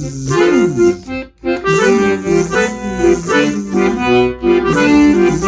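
Accordion playing a lively tune of held chords and moving bass notes, with a brief break about a second in before it starts up again.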